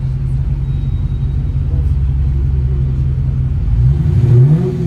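Dodge Challenger widebody's HEMI V8 idling with a steady low rumble, then given one short, light rev near the end, the pitch rising and dropping back.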